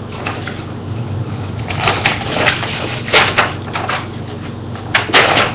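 Packaging being handled: paper and cardboard rustling and crackling in short bursts, the sharpest crackles about two seconds in, around three seconds in and near the end.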